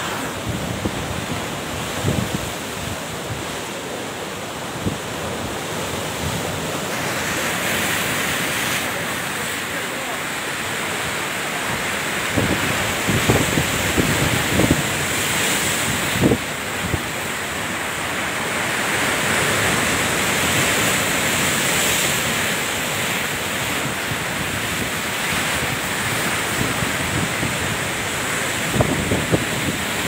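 Rough sea: a steady rush of surf and breaking waves, with wind buffeting the microphone in short gusts now and then.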